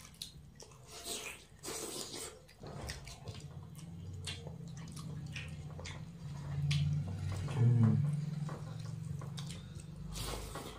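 Close-up eating sounds of several people eating rice and curry by hand: wet chewing and lip-smacking clicks, with fingers squishing rice on the plates. A steady low hum runs underneath, and a short murmur rises about eight seconds in.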